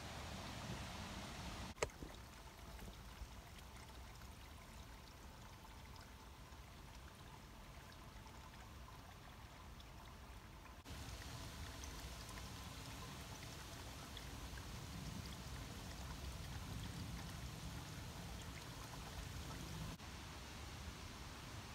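Faint steady background noise, a low rumble with light hiss, with one sharp click about two seconds in; the noise shifts abruptly about eleven seconds in.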